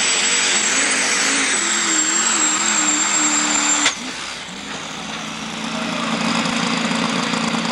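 Two-wheel-drive pulling truck's racing engine at full throttle hauling the sled, its pitch wavering, with a steady high whine above it. About four seconds in the throttle cuts off suddenly as the pull ends, and the engine settles to an idle.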